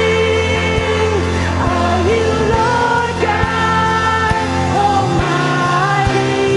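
Live church worship music: a band playing a praise song with a singer holding long notes that slide between pitches over a steady bass and regular percussive hits.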